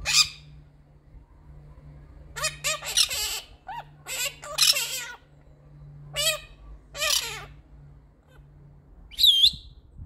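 Quaker parrots (monk parakeets) giving a sharp squawk, then several bursts of harsh chattering calls, with a short looping whistle near the end.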